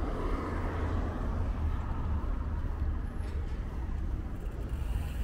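City street traffic noise: a vehicle passing near the start and fading away, over a steady low rumble.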